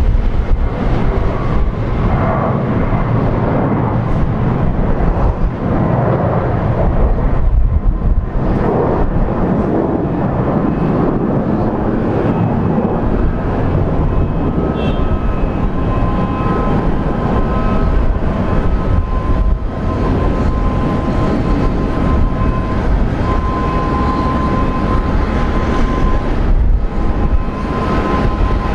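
Boeing 767-300 airliner's twin turbofan engines at takeoff thrust: a loud, steady jet roar as it rolls down the runway, lifts off and climbs away. From about halfway through, steady whining tones sound within the roar.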